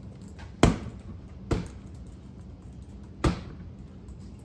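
Three sharp strikes of a rattan sword hitting a target, the wrap shots of a sword drill. The first hit is the loudest, the next comes about a second later, and the third follows after a longer pause.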